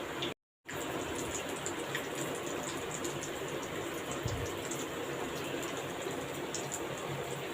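Pieces of meat sizzling as they fry in ghee and oil in a kadai: a steady sizzle with fine crackles, cutting out for a moment about half a second in.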